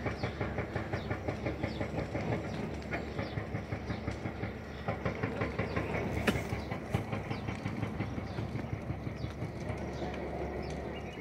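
Dry bushes crackling and popping as they burn in a bush fire: a dense run of rapid sharp pops, about four or five a second, thinning out in the second half, over a steady low rumble.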